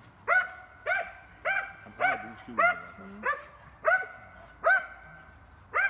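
Belgian Malinois barking repeatedly in an even rhythm, about nine sharp barks, a little under two a second. This is the dog barking at the helper at the blind, as in a bark-and-hold in protection training.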